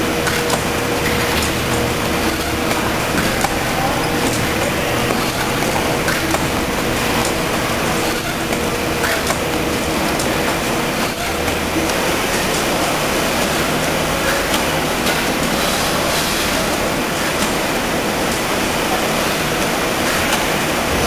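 Steady din of food-packing line machinery and banding equipment: an even, loud hiss with a faint hum that stops a little over halfway through and scattered faint clicks.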